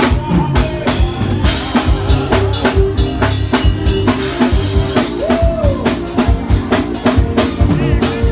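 Forró music without singing, with a steady drum-kit beat of bass drum and snare under held chords.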